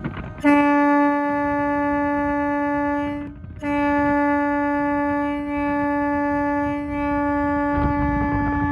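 Ship's horn sounding a steady low note in two long blasts: the first lasts about three seconds, and after a brief break the second starts and keeps going.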